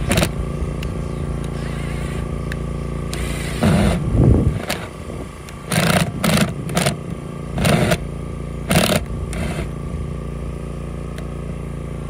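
Cordless drill/driver driving screws into a plastic septic-tank riser lid in several short bursts. An engine drones steadily underneath throughout.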